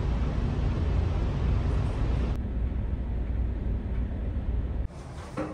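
Steady low rumble of a ferry's engines and hull vibration heard inside the ship. The upper hiss falls away about halfway through, and the whole rumble drops suddenly near the end.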